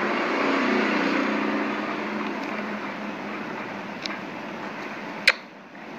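Steady background noise that swells over the first two seconds and then fades, with a faint low hum early on and one sharp click about five seconds in.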